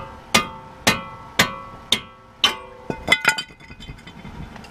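Mallet blows on the stuck cast-iron front brake rotor of a VW MK6 GTI to knock it free of the hub, about two a second, each leaving the rotor ringing. About three seconds in this gives way to a quick clatter of lighter metal knocks.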